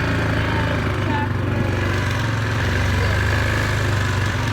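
Single-cylinder engine of a Yamaha Grizzly 450 ATV running steadily while riding along at an even pace, with no revving.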